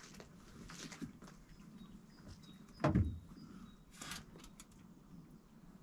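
Small clicks and rustles of hands working with thin wire at the base of a fridge, with one louder dull thump about three seconds in.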